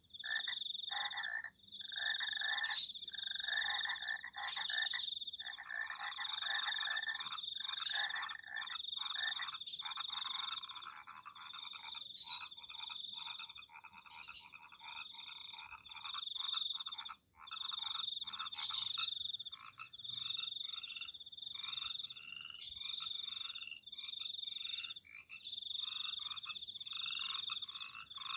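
A chorus of frogs calling, many overlapping croaks that pause in short gaps, over a steady high-pitched trill, with an occasional sharp click.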